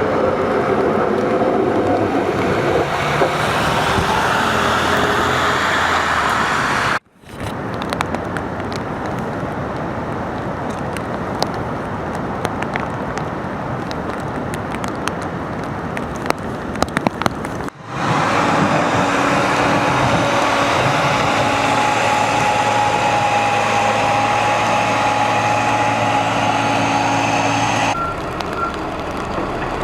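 Trucks and heavy equipment running, a steady engine din, in three edited stretches with brief drop-outs between them about a third and two thirds of the way in.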